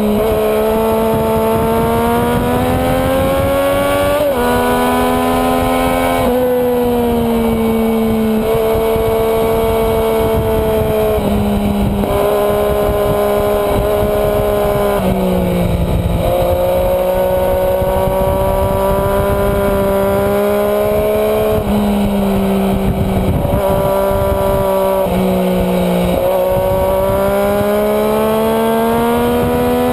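Sport motorcycle engine, heard from a camera on the bike, revving hard on track: its pitch climbs and then drops sharply at each gear change, again and again through the lap, with wind rushing over the microphone.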